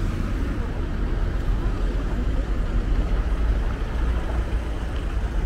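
Street ambience beside a road: a steady low rumble of traffic.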